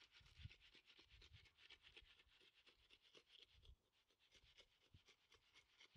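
Faint scratchy scraping of a bull float being drawn across freshly poured wet concrete: a rapid run of fine ticks with a few soft low thumps.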